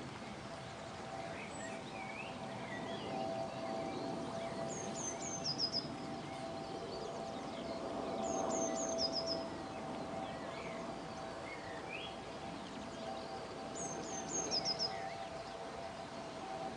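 River water flowing steadily, with a songbird repeating a short, high phrase of about five quick descending notes three times and other birds chirping.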